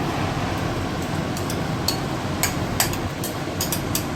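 A steady background hum, with a scatter of light clicks and taps from a spoon scraping tomato paste out of a bowl into the soup pot, most of them in the second half.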